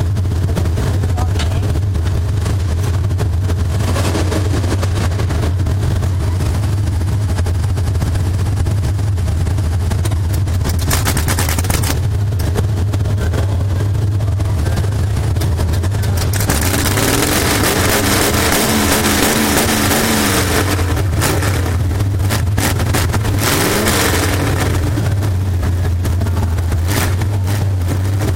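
Race car engine heard from inside the cockpit, running with a steady low drone. From about 17 s to 24 s the drone eases and a louder rushing noise takes over, with the engine pitch sliding down and up before the steady drone returns.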